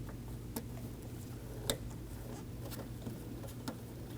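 A few light clicks, the sharpest about one and a half seconds in, as rubber door handle gaskets are slid under and pressed into place on the door. A steady low hum lies underneath.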